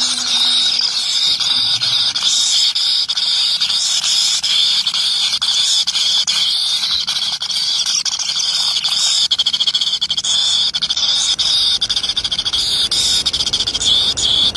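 Loud, steady, high-pitched chirring chorus like crickets or cicadas, with faint low steady notes underneath.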